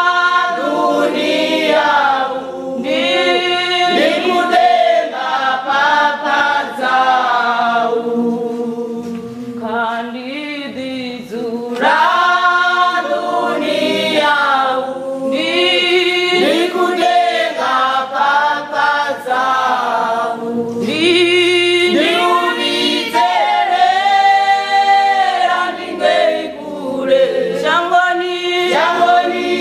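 Church choir singing a gospel song in parts without accompaniment, in phrases with short breaths between them.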